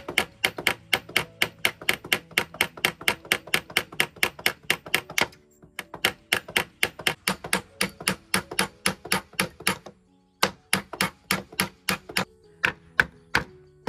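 Rapid, evenly spaced sharp knocks, about five a second, breaking off briefly twice, over background music.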